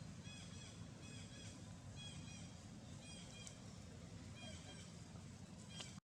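Faint high-pitched animal chirps, each a short arched note, come in small groups about once a second over a low steady rumble. The sound cuts off suddenly just before the end.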